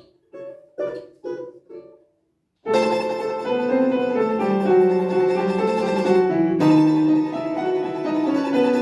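Piano played: a few quiet, detached notes with gaps, a brief pause, then much louder, fuller playing from about three seconds in, with a short break near the end.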